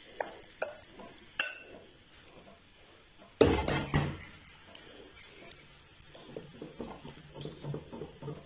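Marinated chicken being scraped out of a glass bowl into a non-stick frying pan, with a few light clinks of the bowl on the pan. There is one louder knock about three and a half seconds in, then a wooden spatula spreads and stirs the chicken in the pan with soft, irregular scraping.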